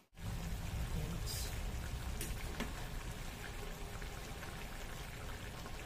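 Pork ribs and jackfruit cooking in a wok, a steady sizzling hiss with a few faint pops.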